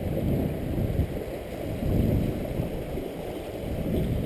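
Low, rumbling wind-and-water noise on an open drift boat on a river, rising and falling unevenly, with no voices.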